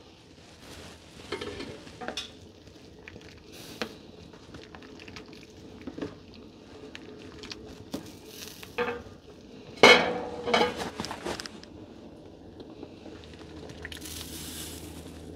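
Plastic slotted spoon stirring soup in a stainless steel pot, knocking and clinking against the pot now and then. The enamel plate used as a lid is taken off near the start. The loudest knock comes about ten seconds in.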